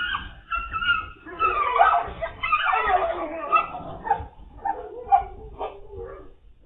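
A dog barking and yelping, with a string of short quick barks in the second half, heard thin through a low-quality recording.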